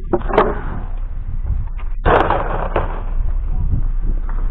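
A vehicle running with a steady low hum, broken by scattered clattering knocks and a short rush of noise about two seconds in.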